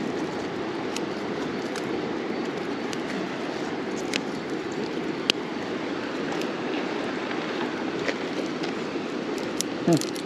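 Small campfire of twigs and sticks burning, with scattered sharp crackles over a steady rushing noise.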